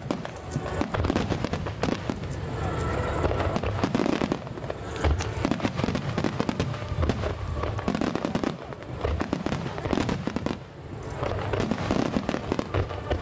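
Fireworks finale barrage: many aerial shells bursting in rapid, overlapping succession with crackling, easing briefly about ten seconds in before building again.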